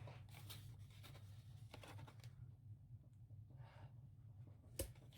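Faint rustling and light taps of patterned paper being folded and fitted together by hand into a small box, with one sharper tap near the end, over a low steady hum.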